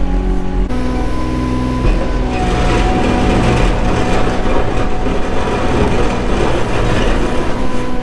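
Compact pivot-steer (articulated) loader's diesel engine running as the machine drives along, heard from the operator's seat, with a steady high whine over it. About two seconds in, the sound grows busier and louder and then holds.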